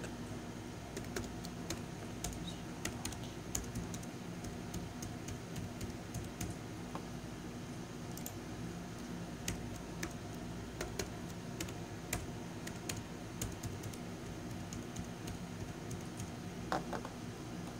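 Typing on a computer keyboard: irregular key clicks as a password is entered and then typed again in the confirmation field.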